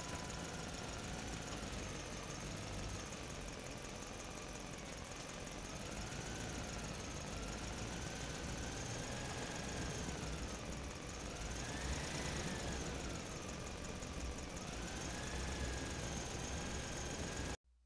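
Small electric motor and gears of a homemade toy tractor whining as it pulls a loaded trailer over soil, the pitch rising and falling with the load. The sound cuts off suddenly near the end.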